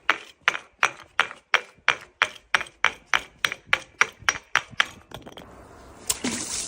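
Glass bottle tumbling down stair steps, a hard knock on each step at about three knocks a second for about five seconds, then one heavier impact about six seconds in.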